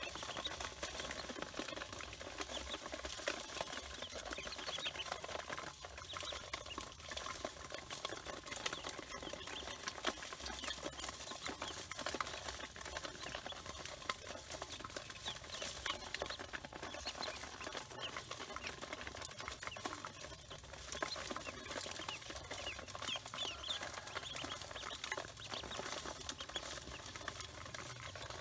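A crowd of ducklings peeping nonstop, many short high chirps overlapping, with their feet scuffling in a metal basin.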